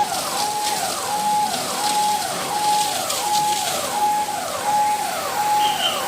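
Electronic siren sounding a fast repeating cycle. Each note holds high, then drops, about three cycles every two seconds, over a steady hiss.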